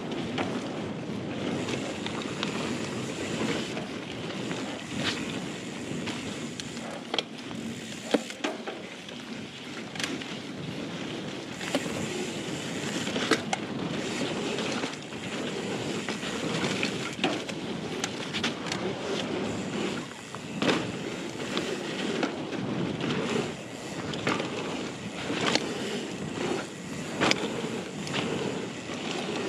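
Ibis Ripmo AF full-suspension mountain bike rolling fast over a packed-dirt trail: a steady rush of tyre noise and wind on the microphone, broken by irregular sharp clicks and knocks from the bike rattling over bumps.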